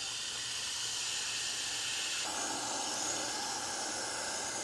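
Water pouring steadily into a self-watering planter, filling its reservoir. The steady rush gets fuller about halfway through.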